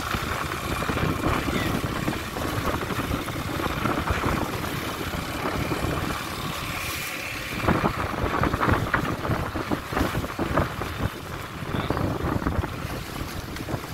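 Small motorboat under way on choppy water: wind buffeting the microphone and water slapping against the hull, with a louder run of slaps from about eight seconds in.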